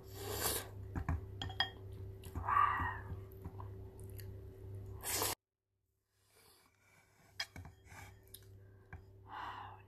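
Close-up eating sounds: a person chewing cheese-covered BBQ chicken wings, with wet mouth sounds and light clicks of wooden chopsticks against a bowl. The sound cuts out entirely for a moment about halfway.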